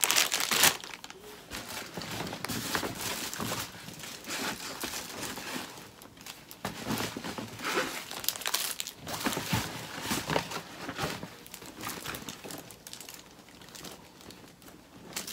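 Plastic candy packaging crinkling and rustling as it is handled, on and off throughout, loudest in the first second.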